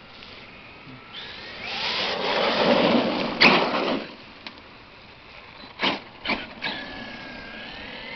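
A small motorized vehicle runs past, its whine swelling and then fading over about three seconds, with a sharp click at its loudest. Three quick sharp knocks follow.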